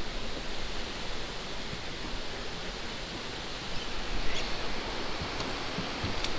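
Steady hiss of rain falling on the water and the boat, with a few faint ticks in the second half.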